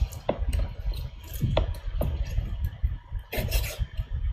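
Cooked goat meat being pulled off the bone by hand: soft wet squishing with a few sharp clicks, over a low rumble.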